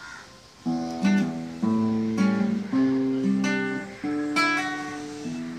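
Acoustic guitar played solo: a melody of picked notes mixed with chords, each note ringing and fading, starting about half a second in.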